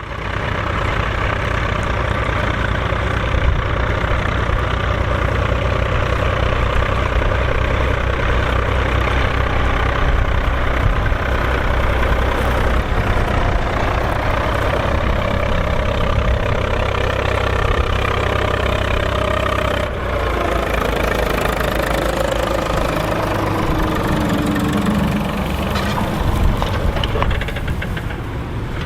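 Diesel engine of a Volvo BM farm tractor running steadily while ploughing, with a short dip in level about twenty seconds in.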